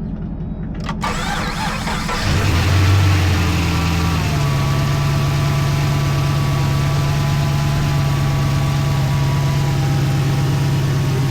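A 2010 Camaro's LS3 V8 being started: a sharp click about a second in, the engine catches around two seconds in, and it settles into a steady idle after about four seconds.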